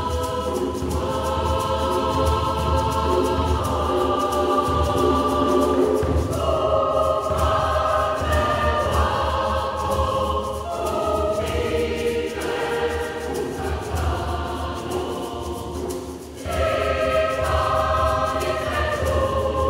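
Mixed choir of women's and men's voices singing a religious song in several parts, with a short break between phrases near the end.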